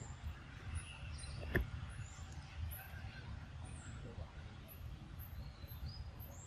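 Outdoor ambience: short high-pitched chirps repeating about one and a half times a second over a low steady rumble, with one sharp click about a second and a half in.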